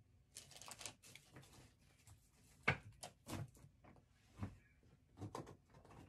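Someone rummaging through items by hand: faint scattered rustles and several light knocks, the sharpest about two and a half seconds in.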